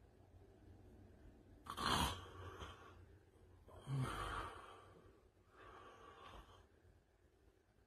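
Heavy breathing of a sleeping man: three faint, breathy breaths about two seconds apart, the first two the strongest.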